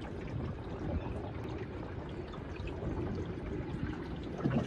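Water gurgling and trickling along the hull of an Ilur sailing dinghy under sail, with a louder splash near the end.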